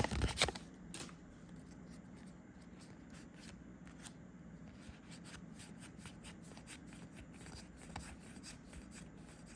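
Trading cards being handled and flipped through from a booster pack: faint, scattered soft card clicks and rustles.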